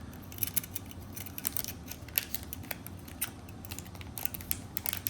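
A belt and its buckle being handled and worked into a bag: irregular small clicks and crinkling rustles, several a second.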